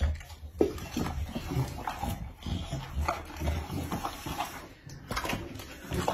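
A dog eating mushy food from a bowl: wet chewing and smacking in an irregular run of short strokes.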